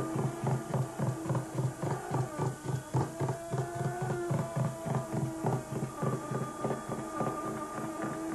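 Cartoon car engine sound effect: a low, rhythmic putter of about four to five beats a second over a steady hum, with the hum's pitch shifting briefly midway.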